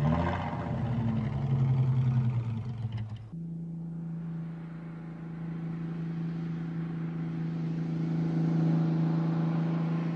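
A BMW 315/1 roadster's six-cylinder engine, fed by three Solex carburettors, running as the car drives. About three seconds in the sound cuts suddenly to a steady, even engine note that slowly grows louder as the car approaches.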